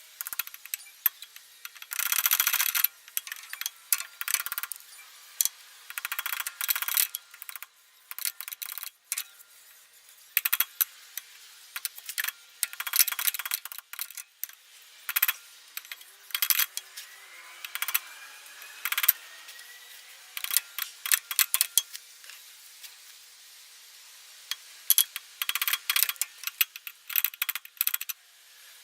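A small steel punch struck against the metal rim of a new ATV rear differential seal to drive it into its bore: irregular sharp metallic taps and clinks, some in quick runs, with pauses between.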